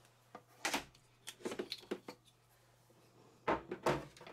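Power and communication cables being handled and plugged in at the back of a 3D printer: scattered short clicks, knocks and rustles, with a louder cluster near the end.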